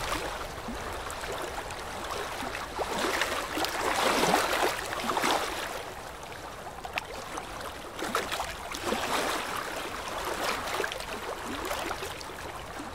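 Small waves sloshing and gurgling right against a camera held at the waterline, with splashes washing over it. It swells loudest about three to five seconds in.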